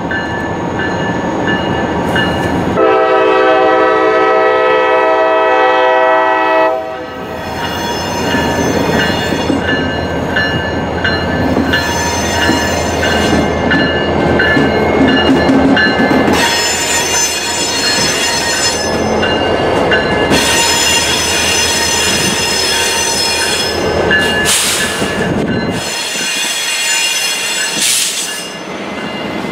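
Diesel locomotive horn sounding one long blast of about four seconds a few seconds in, followed by the locomotive's engine and wheels approaching, with high-pitched wheel squeal on the curve in the second half.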